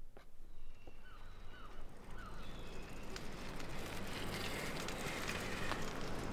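Birds chirping in short calls, then a steady outdoor rush with light scattered clicks from bicycles being ridden along a path.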